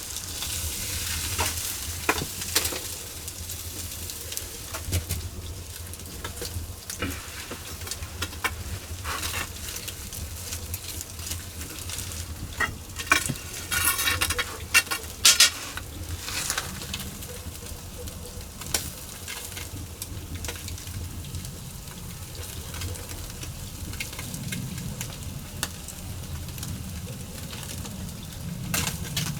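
Spanish mackerel grilling on a grate over wood-fire coals, its dripping fat sizzling and crackling on the embers, with a run of louder pops about halfway through.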